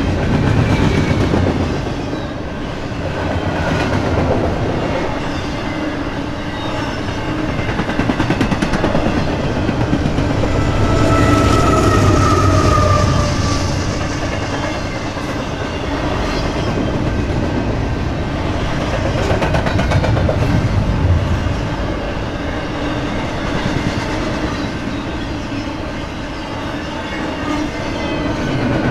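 Freight train cars rolling past close by: a steady rumble with wheels clicking over the rail joints, swelling and easing every few seconds. A brief faint high squeal near the middle.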